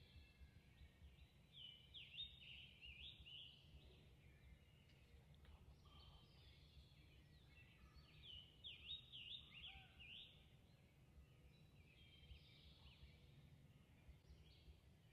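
Faint songbird song: phrases of quick, high, up-and-down notes, repeated several times and clearest about two and nine seconds in, over a low steady rumble.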